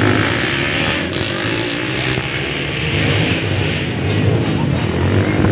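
Motocross dirt bikes' engines running out on a dirt track, a loud continuous engine noise heard through the spectators' general din.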